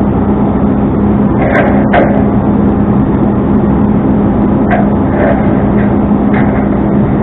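Tow truck engine running with a loud, steady drone and a constant hum, with a few short knocks and rattles scattered through it.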